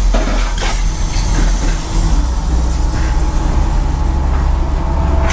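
A fishing boat's engine running with a steady low rumble. A few brief knocks come in the first second.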